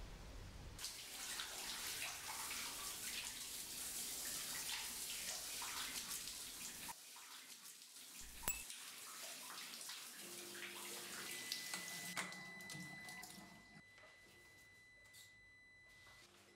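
Water running and splashing from a tap or shower, stopping abruptly after about six seconds. A single sharp tick follows, then a faint, steady, high ringing tone.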